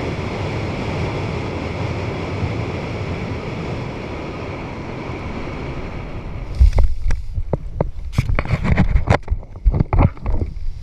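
Steady wind rushing over the microphone during a parachute descent under canopy. About six and a half seconds in the wind noise drops away and gives way to a string of irregular thumps and rustles as the parachutist touches down on the grass.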